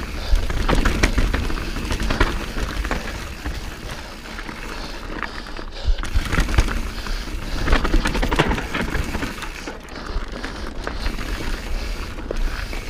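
Transition Patrol carbon mountain bike riding fast down a rough dirt trail: tyres crunching over dirt and rocks, with many quick clattering knocks as the bike hits roots and bumps. A steady low wind rumble sits underneath.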